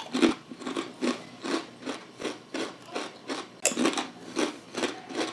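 Crunchy Covered Bridge crinkle-cut cheddar cheese potato chips being chewed: a steady run of crunches, about two to three a second.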